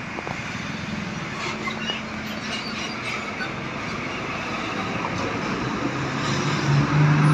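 Roadside traffic noise as vehicles pass. Near the end a heavy vehicle, most likely a bus, comes close with a low steady tone that swells loud.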